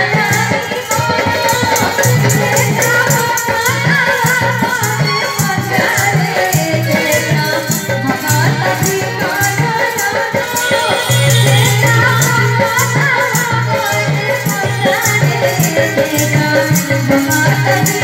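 A woman singing a devotional song into a microphone, accompanied by steady shaken-rattle percussion and other instruments.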